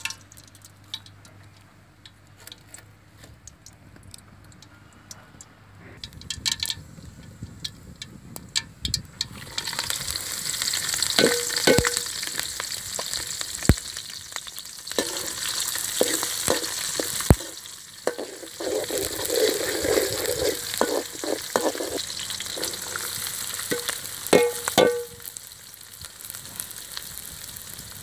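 Mustard seeds heating in oil in a large aluminium pan, with small scattered pops. About ten seconds in, chopped green chillies, garlic and leaves go into the hot oil and a loud sizzling starts, with a metal spoon now and then knocking and scraping on the pan.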